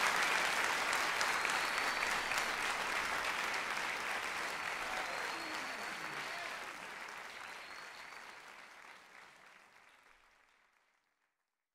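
Audience applauding, fading out gradually to silence near the end.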